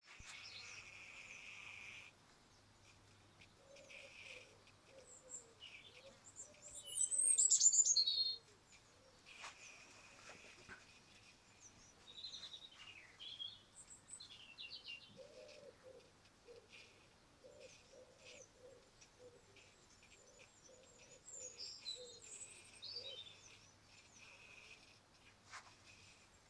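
Birds singing and chirping, with a loud phrase of fast, falling notes about seven seconds in and shorter phrases later.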